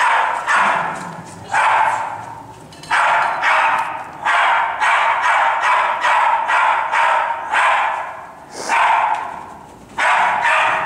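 Small dog barking over and over in rapid runs of sharp barks, with brief pauses between the runs.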